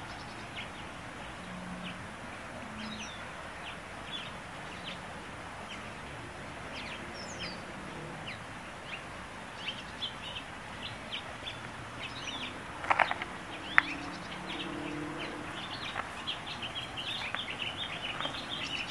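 Small songbirds chirping, many short high chirps, busier near the end, over a steady outdoor background hiss. A couple of louder, sharper sounds come about two-thirds of the way through.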